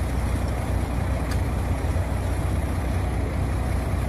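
Bucket truck's engine running steadily at a constant speed, with a low, even hum.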